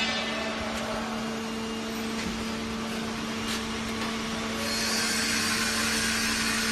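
Foam compression and roll packing machine running with a steady electric hum and a hiss as it feeds out a plastic-film-wrapped rolled foam block; the hiss grows louder about five seconds in.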